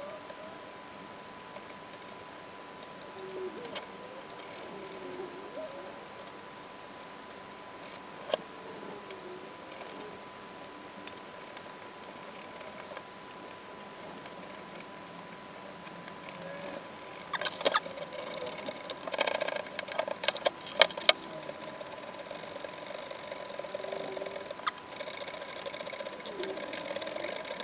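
Small parts of a CNC machine being handled and fitted by hand: scattered clicks and light rattles, with a run of louder clicks and knocks about two-thirds of the way through. A faint steady high tone sounds underneath.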